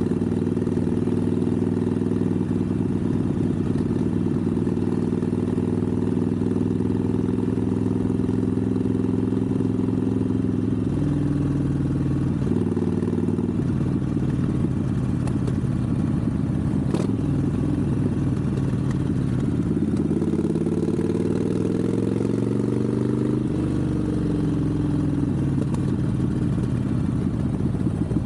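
Harley-Davidson Sportster 1200 air-cooled V-twin running under way at low speed. The engine note holds steady for about ten seconds, then changes. From about twenty seconds in it rises with the throttle, and it drops away suddenly at about twenty-four seconds.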